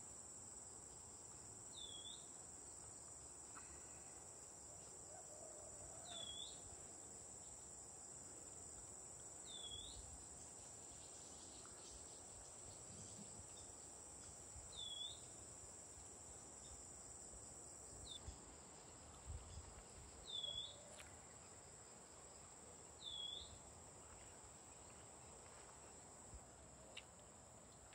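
Faint outdoor ambience: insects keep up a steady high-pitched drone, and a bird gives a short chirp every few seconds.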